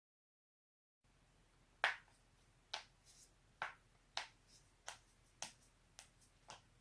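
A person's joints cracking: a run of about eight sharp pops, roughly half a second to a second apart, with a few fainter clicks between, starting about a second in.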